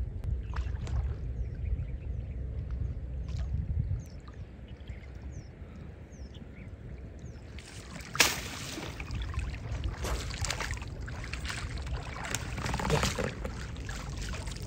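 Water sloshing and splashing around people wading chest-deep through a pond, pushing clumps of pulled-up weed. The first few seconds are quieter with a low rumble; the splashing becomes louder and busier after a sudden sharp noise a little past the middle, which is the loudest moment.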